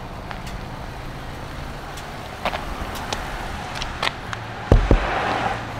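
Car engine idling steadily, with footsteps coming up to it. About five seconds in come two heavy thumps as the car's door is opened.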